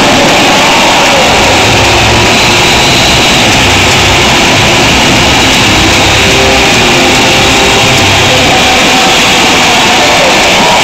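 Packed stadium crowd roaring and cheering, so loud that it overloads the camera's microphone into a harsh, distorted wash, with low booming music from the stadium speakers underneath.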